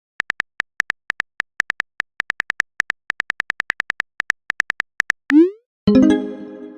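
Phone keyboard typing sound effect: a fast, uneven run of short clicks for about five seconds, then a short rising pop as a message is sent. Just before the end comes a ringing notification chime that fades out.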